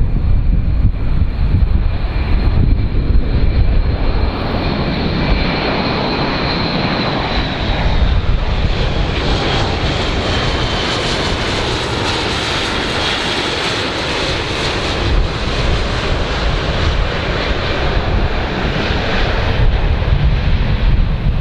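Aircraft engine noise from a large airplane: a loud, steady rumble with a high whine that slowly falls in pitch partway through.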